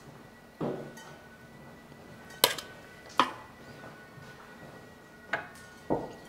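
A metal ladle clinking against a ceramic plate as stew is served out: three sharp clinks in the middle, with a couple of softer thuds of food landing near the start and the end. Faint background music underneath.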